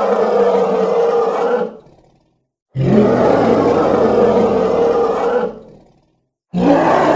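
Cartoon wildebeest villain's roar sound effect, played over and over: a roar trails off a little under two seconds in, a second roar of about three seconds follows after a short silence, and a third begins near the end.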